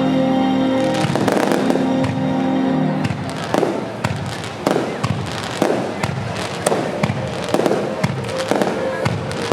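Fireworks display: aerial shells bursting with crackle over music. The music holds sustained chords for the first few seconds, then from about three seconds in sharp bangs come roughly once a second.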